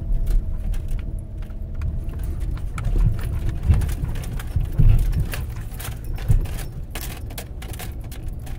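Car cabin noise while driving slowly over a rutted, muddy dirt road: a steady low rumble from the tyres and suspension, with scattered knocks and rattles as the car goes over bumps, several of them in the middle stretch.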